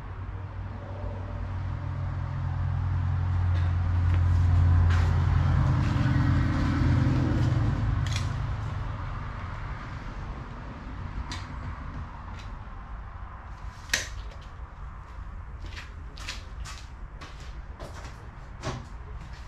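A low, level drone swells over several seconds and fades away. It is followed by a run of light clicks and taps with one sharper knock near the middle, as tools and metal parts are handled on a workbench.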